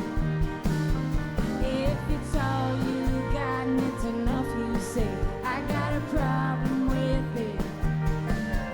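Full band playing live: a steady drum beat under sustained bass notes and guitars.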